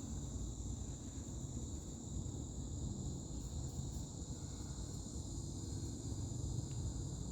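Steady high-pitched chirring of insects, over a faint low rumble of outdoor background noise.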